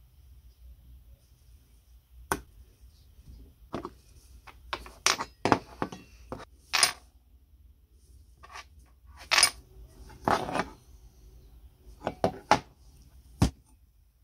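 Metal parts of an antique seed planter handled on a wooden workbench: irregular clinks, taps and short scrapes as a small steel plate is fitted against a riveted steel bracket.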